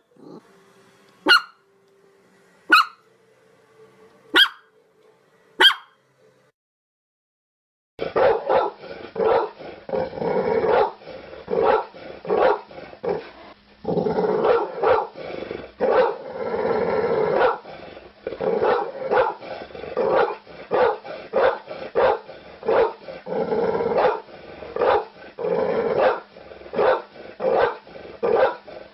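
Dog barking: four single sharp barks about a second and a half apart, then after a brief silence a different recording of rapid, continuous barking, several barks a second.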